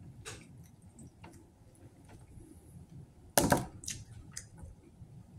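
A person chewing crisp thin-crust pizza close to the microphone, with small mouth clicks and crackles, and one loud crunch a little past the middle as the crust breaks.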